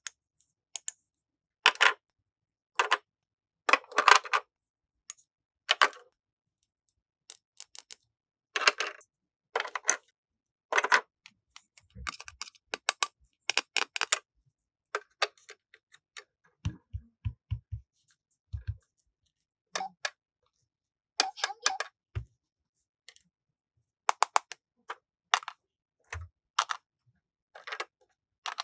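Hard plastic toy pieces being handled and set down: irregular sharp clicks and taps with short pauses between them, and a quick run of soft low knocks about seventeen seconds in.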